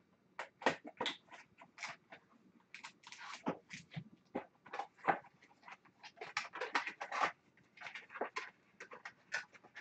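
Cardboard card box being opened and a wrapped card pack handled: an irregular run of short crinkles, rustles and taps of paperboard and wrapper.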